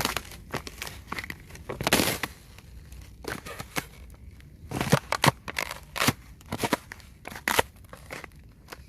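Icy crusted snow being tapped and scratched: irregular sharp taps and crunchy clicks, with a longer scraping crunch about two seconds in and a quick run of louder taps around the middle.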